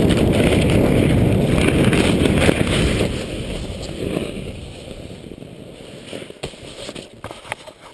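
Snowskate ride over snow: a loud rush of wind on the helmet camera's microphone and the board hissing through the snow. About three seconds in it fades away as the ride slows to a stop, leaving a few faint crunches and clicks.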